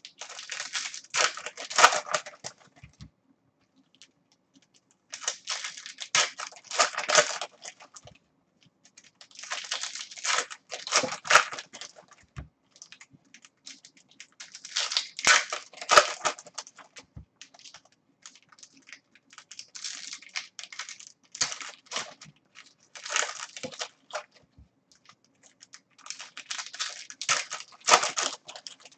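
Foil wrappers of 2016 Bowman's Best baseball card packs being torn open and crinkled by hand, in repeated bursts of a few seconds each with short pauses between.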